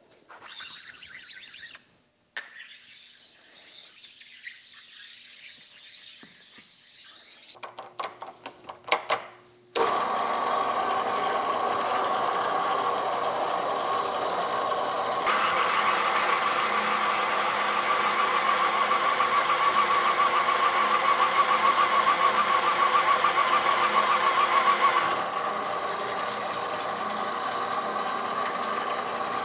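Drill press motor starts about ten seconds in and runs steadily with a strong steady tone, a large twist drill boring into the edge of a thick CPVC plastic plate. For about ten seconds in the middle the cutting is louder and hissier, then the press runs on. A few light handling clicks come before the motor starts.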